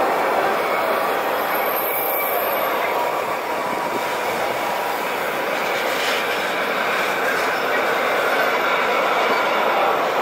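Train running along the track: a steady rush of wheel-on-rail noise with faint, thin squealing tones from the wheels.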